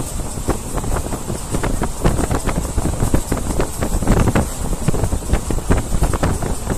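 Wind buffeting the microphone at the open window of a moving Vaigai Express passenger train, over the running rumble of the coaches on the track, with frequent sharp rattles.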